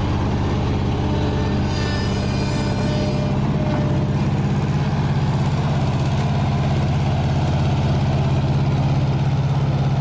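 Old Bobcat skid steer's gasoline engine running steadily with a low rhythmic pulse. The engine is thought to be running on three cylinders, suspected to be a distributor fault (a missing reluctor).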